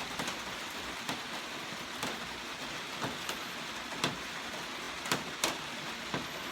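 Heavy rain falling steadily, with irregular sharp taps of drops striking a nearby surface.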